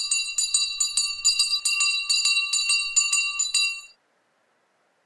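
Small bells jingling in quick repeated strikes, about four or five a second, over a steady ringing chord. The ringing dies away and stops about four seconds in.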